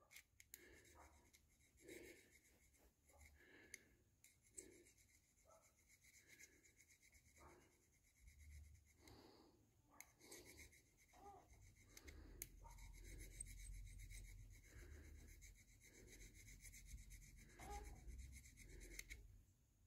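Faint rubbing of a very fine file on the brass contact of a distributor rotor, cleaning black corrosion off to make it shiny. Scattered light scrapes at first, turning into steadier rubbing in the second half.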